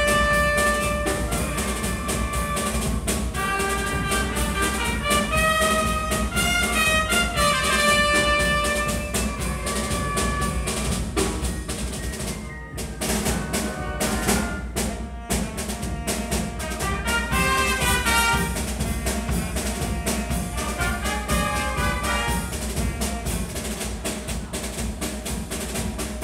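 Wind band playing a piece, with trumpets carrying the melody over flutes, saxophone and tuba. A run of drum strikes comes a little past the middle.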